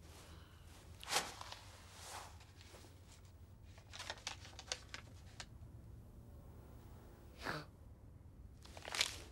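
Sparse small clicks and rustles over a low hum: a tick about a second in, a quick run of light ticks around four to five seconds in, and soft swishes near the end.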